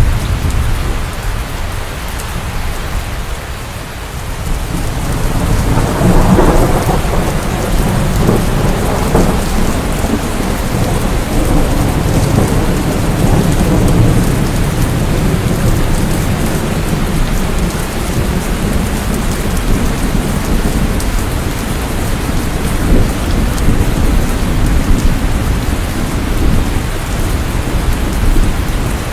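Steady rain in a thunderstorm, with thunder rumbling underneath; the rumble swells about five seconds in and rolls on.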